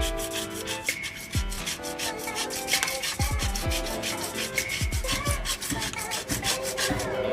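Hand saw cutting through 1/2-inch PVC pipe, a steady run of rasping back-and-forth strokes.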